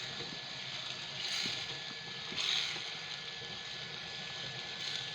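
Pot of oil and tomato stew sizzling and bubbling as beef is added, with two louder surges of sizzle about a second and two and a half seconds in, and a few faint knocks.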